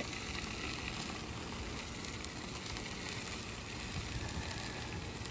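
A low, steady sizzle with a few faint crackles from pork sausage browning in a pot on a burner.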